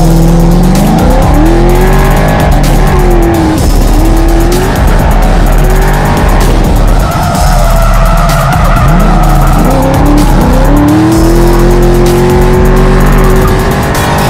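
Drift car's engine revving hard, its pitch climbing and dropping again and again with the throttle, with a long climb near the end, while the tyres squeal as the car slides sideways.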